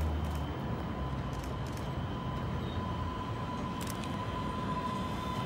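MBTA Green Line light-rail train approaching: a steady rumble of wheels on the rails with a steady whine that grows louder as the train nears, and a faint click or two.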